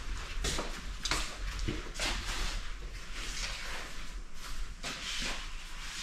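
Footsteps of people walking along a wooden-floored hallway: irregular soft steps about twice a second, with light rustling.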